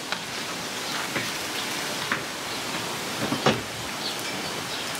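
Steady outdoor hiss with a few light knocks, and a louder thump about three and a half seconds in, as a person climbs aboard an aluminum bass boat resting on its trailer.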